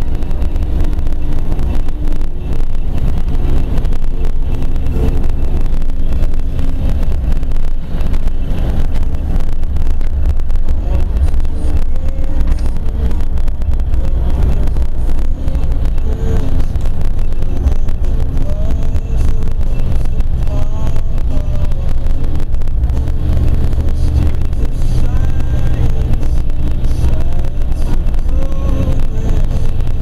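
Car driving at highway speed, heard from inside the cabin: a steady low rumble of engine and tyre noise.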